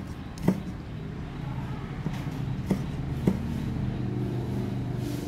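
Cleaver chopping red chillies on a round wooden chopping block: a sharp chop about half a second in and two more just past the middle. Under it a steady engine hum builds from about a second and a half in.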